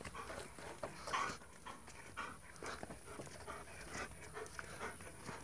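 Treeing Walker Coonhound panting, with irregular scuffing footsteps on dry dirt and leaves.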